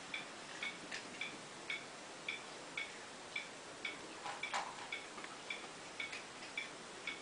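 Steady, even ticking, a little under two short, high ticks a second, like a clock. About four and a half seconds in, a brief louder sound rises over it.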